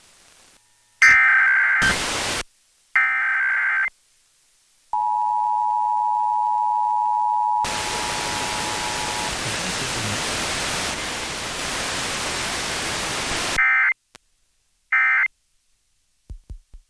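Emergency Alert System tones over FM radio: two one-second screeches of SAME header data, then the two-tone attention signal (853 and 960 Hz) about five seconds in, cut off by about six seconds of radio static hiss, with two short fragments of header data near the end.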